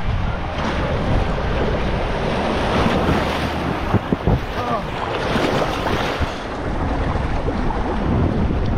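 Water rushing and wind buffeting an action camera as a rider on an inner tube slides down a water slide, with sharp splashes and knocks about halfway through as the tube runs out into the splash pool.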